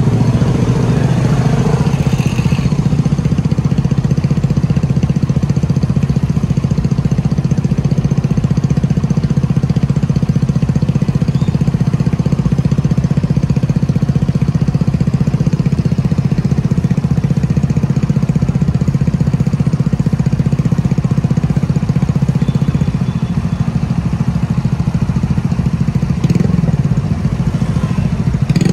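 Motorcycle engine idling steadily up close, an even fast putter.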